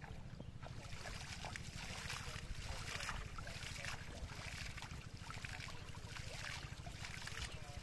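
Shallow water splashing and trickling as a man wades and sweeps water with his hand, an irregular run of small splashes with a steady low rumble underneath.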